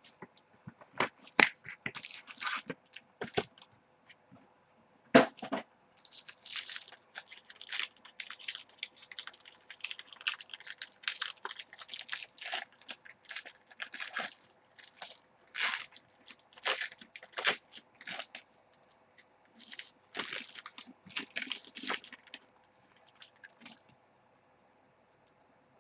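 Trading-card box and packs being torn open and the cards handled: plastic and foil wrapping crackling and crinkling, with sharp snaps. It is densest through the middle and thins out near the end.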